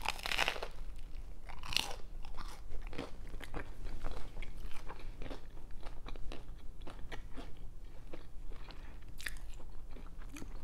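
A bite into a toasted mac and cheese grilled cheese sandwich: a loud crunch of the toasted bread at the start, then chewing with many small crunches and crackles.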